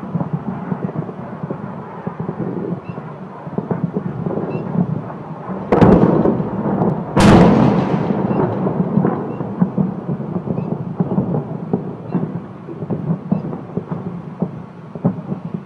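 Distant bomb explosions over a city: a continuous low rumble with scattered cracks, and two loud booms about a second and a half apart near the middle, each trailing off in a rolling rumble.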